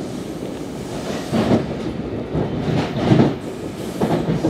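Ride noise inside a moving NJ Transit Multilevel II passenger coach: a steady rumble, then from about a second in a run of clattering knocks, several in pairs, as the wheels pass over track joints.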